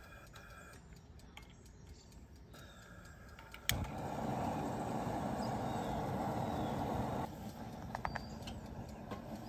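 Propane turkey-fryer burner being lit with a long lighter: a sharp click, then the burner flame running with a steady noise for about three and a half seconds until it cuts off abruptly.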